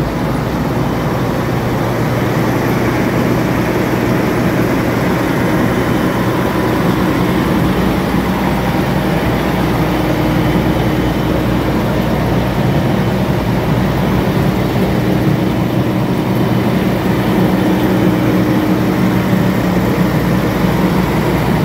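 Claas Lexion 560 combine harvester's diesel engine running steadily, heard up close beside the machine.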